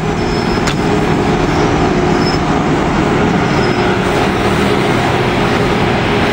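E656 electric locomotive moving off with its train, its motors and cooling blowers giving a loud, steady hum over wheel and rail noise.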